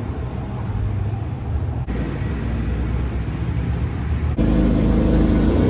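Old highboy pickup truck's engine and road noise heard from inside the cab at highway speed; the engine lacks a good muffler. About four seconds in it suddenly gets louder and the engine note climbs, as the transfer case pops out of gear and the engine runs free.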